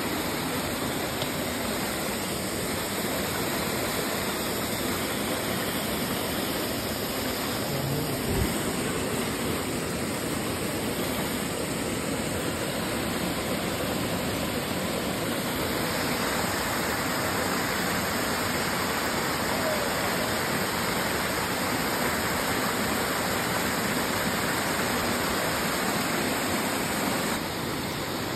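Rushing mountain stream cascading over rocks, a steady close rush of water.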